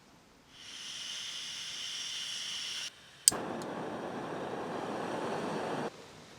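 A steady high hiss for about two seconds, then a sharp click and a lower, even rushing noise for about two and a half seconds. Each part starts and stops abruptly.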